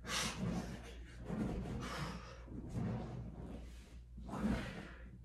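A woman breathing hard from exertion during a workout, with a sharp breath about once a second.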